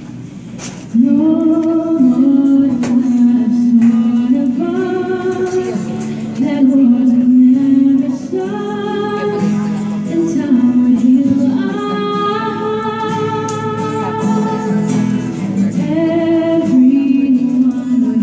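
A woman singing a slow Christmas ballad, holding long notes, while accompanying herself on an acoustic guitar. After a quieter first second, the voice comes back in about a second in and carries phrase after phrase.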